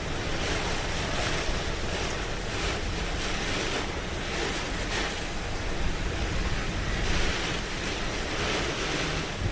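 Hurricane winds blowing hard outside, an even rushing noise that surges in gusts every second or two, with wind buffeting the microphone.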